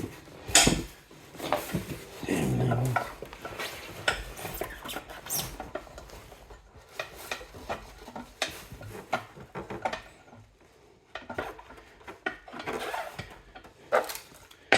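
Irregular metallic clinks, knocks and scrapes from a wheel axle and wheels being slid and fitted onto an air compressor's frame.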